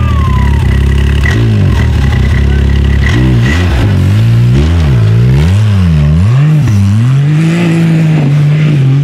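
Off-road race vehicle's engine idling steadily, then revved up and down in a string of throttle blips from about three seconds in, then held at a steady higher pitch near the end.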